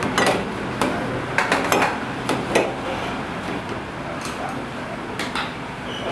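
Kitchen utensils and dishes clinking and knocking at irregular intervals, about a dozen sharp strikes, some ringing briefly, as buns are made.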